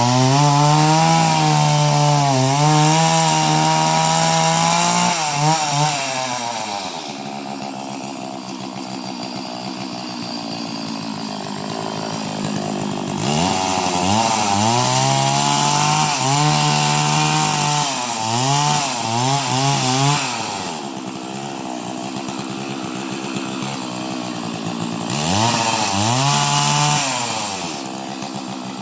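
Chainsaw engine running, revved up three times in bursts of a few seconds and dropping back to idle between them.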